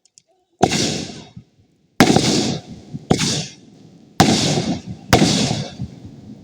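Fireworks exploding: five loud bangs about a second apart, each one trailing off as it fades.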